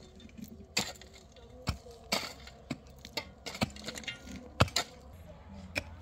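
A series of irregular sharp knocks and clinks, about eight of them, the loudest a little past halfway, like hard objects being handled and set down.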